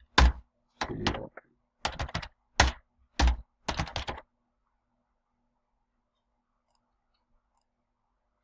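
Computer keyboard typing: a quick run of keystrokes for about four seconds that stops about halfway through.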